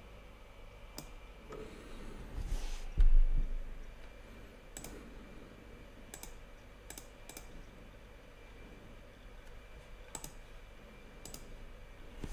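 Computer mouse clicks, about seven sharp, separate ones spread out, with a low dull thump about three seconds in.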